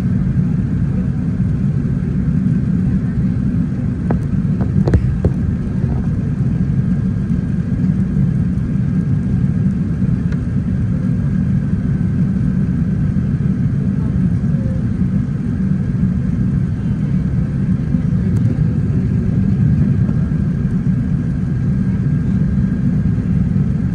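Airbus A380 cabin noise on final approach: a steady low rumble of engines and airflow, with a faint steady high whine above it. A few faint clicks about four to five seconds in.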